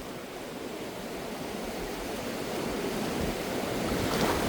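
Rushing river water, a steady hiss of flowing water that grows steadily louder.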